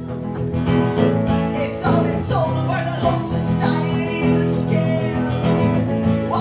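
Live acoustic guitar strummed steadily under a man singing a comedy song.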